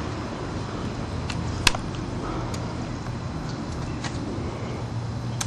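A few sharp, single snaps of airsoft guns firing, spaced irregularly, the loudest about one and a half seconds in, over a steady low rumble.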